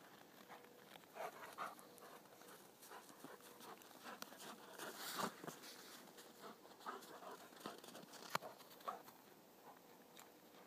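Briard dog panting faintly in short irregular puffs, with scattered soft crunches as it moves about in the snow.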